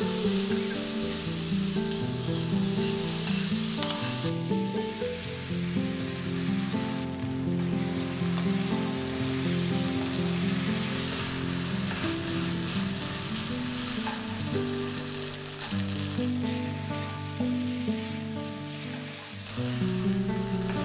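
Diced vegetables and chicken mince sizzling in hot oil in a nonstick wok while a wooden spatula stirs and tosses them. The sizzle is loudest in the first four seconds, then eases. Soft background music plays underneath.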